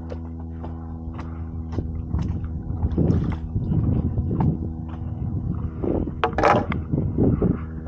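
Stand-up paddleboard paddle strokes splashing in shallow water, the loudest splash about six seconds in, over a steady low hum.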